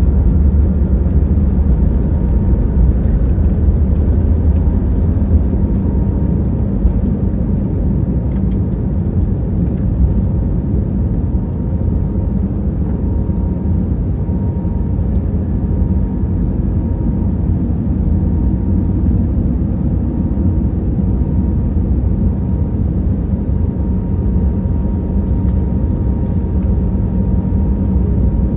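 Cabin noise of an Airbus A321neo during takeoff: its Pratt & Whitney PW1100G geared turbofans running steadily at high power, a loud deep rumble with a faint steady whine. The rumble is heaviest in the first few seconds and eases slightly after.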